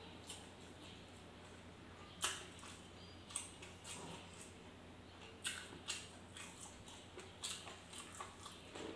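Close-up eating sounds: chewing with scattered wet mouth smacks and clicks, irregular and a second or so apart, over a faint steady low hum.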